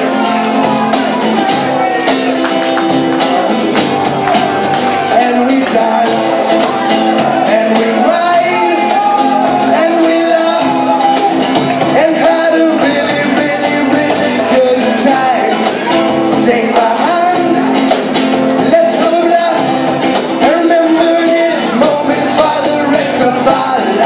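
Live band playing a song: a lead singer over electric guitar and cajón, with the echo of a large concert hall heard from the audience.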